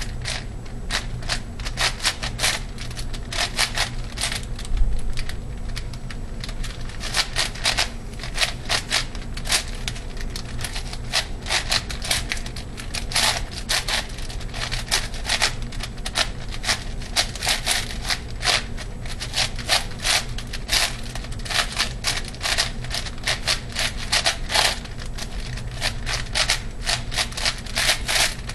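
ShengShou 8x8x8 puzzle cube's plastic layers clicking and clacking as they are turned fast in a speedsolve: a quick, uneven run of clicks with brief pauses.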